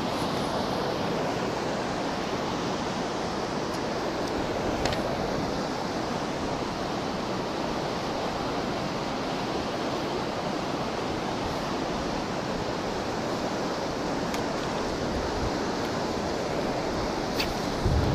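Steady rushing of flowing water, with a few faint light clicks over it.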